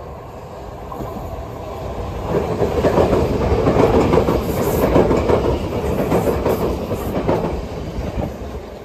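Class 377 Electrostar electric multiple unit departing and running close past, growing louder from about two seconds in. Wheels rumble on the rails with rapid clicking as the carriages pass, then the sound fades near the end.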